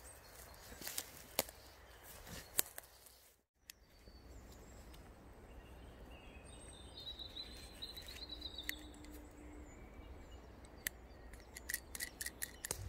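Hammock tree strap and a metal carabiner being handled: a few sharp clicks and rustles of webbing, then a quick run of small metallic clicks near the end as the carabiner gate is clipped onto the strap loop. A bird chirps faintly in the middle.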